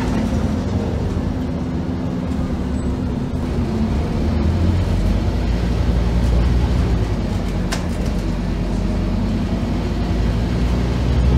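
Scania OmniCity N230UD double-decker bus's five-cylinder diesel engine, heard inside the upper deck, pulling as the bus drives; its low drone grows louder and heavier about four to five seconds in. A single sharp click sounds about two-thirds of the way through.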